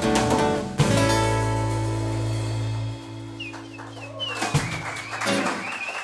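An acoustic blues trio of acoustic guitar, acoustic bass guitar and drum kit ends a song with one final hit about a second in. The chord and the deep bass note then ring out and fade. Near the end a high wavering whistle and clapping from the audience start.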